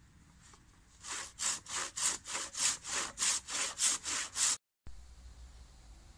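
Handsaw cutting through a wooden post: about a dozen quick back-and-forth strokes, roughly three a second, that cut off suddenly near the end.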